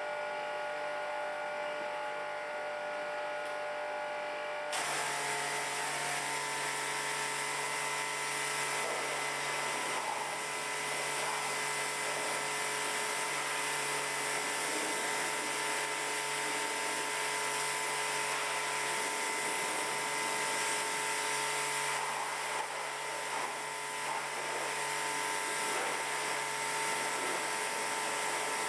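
Pressure washer running: about five seconds in, the pump's motor whine rises and a steady hiss of high-pressure water spray starts and continues, the jet rinsing a car's engine bay.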